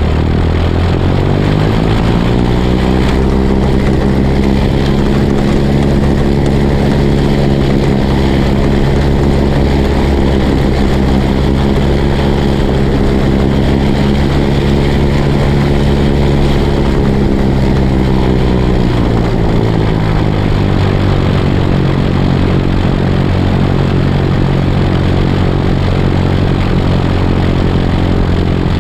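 Piper Cherokee's piston engine and propeller running: the engine speeds up over the first couple of seconds, holds a steady higher pitch for about fifteen seconds, then drops back to a lower steady note for the rest of the time.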